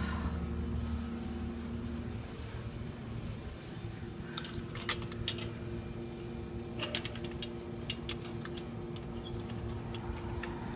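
Outdoor background: a passing vehicle's rumble fading out at the start over a faint steady hum, then scattered sharp clicks and brief high chirps, the loudest click about halfway through.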